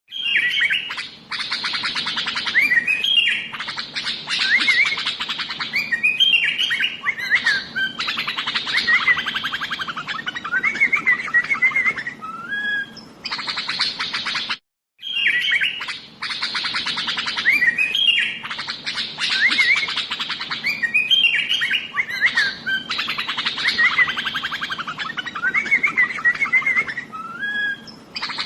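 Sooty-headed bulbul (kutilang) singing non-stop: dense, rapid chattering with short whistled phrases woven through. The same stretch of song repeats after a brief silent break about halfway through, as a looped recording.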